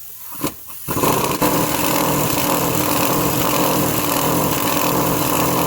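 An engine running steadily, starting abruptly about a second in after a few faint clicks and cutting off sharply at the end.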